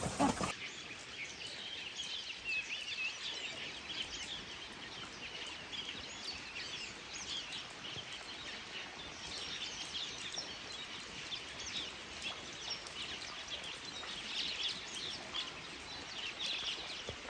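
Small birds chirping, many short high calls overlapping and scattered throughout, over a faint steady outdoor hiss.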